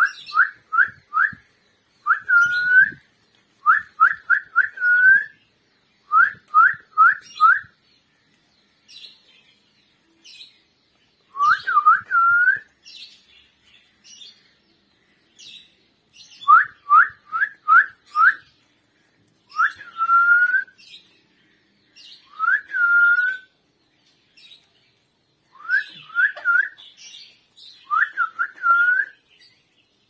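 Clear, upward-sweeping whistled notes in quick runs of three or four, some longer notes rising and then holding, coming in bursts separated by short pauses.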